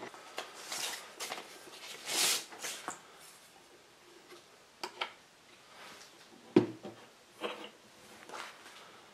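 Handling noises on an HMV 101 portable gramophone as a shellac 78 record is set on the turntable and the tone arm and soundbox are swung over it. There is rustling and scraping, a few light clicks, and one sharp knock about two-thirds of the way through.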